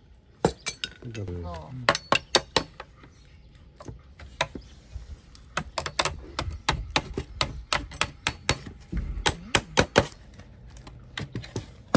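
A heavy chopping knife's steel blade knocking and tapping against bamboo strips and slats: a run of sharp, uneven clicks, thickest in the second half, with a few spoken words.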